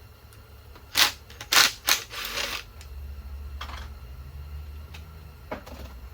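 Three sharp metal hammer strikes about a second in, knocking a Torx bit and ratchet into a stubborn, stripping water pump housing bolt, then a short metal rattle and a couple of fainter clicks.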